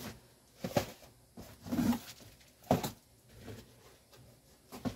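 A few scattered knocks and clicks of things being handled and moved about in a cabinet, with quiet gaps between them.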